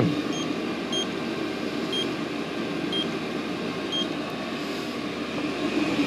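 Diesel air heater running steadily, a constant rush of fan and burner. A short high electronic beep sounds about once a second over it.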